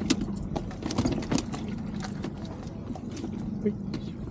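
Irregular clicks and knocks, several a second, with the sharpest ones in the first second and a half, over a steady low hum.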